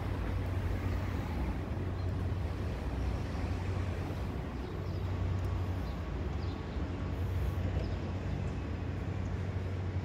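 Steady city street ambience: a continuous low hum of traffic and engines.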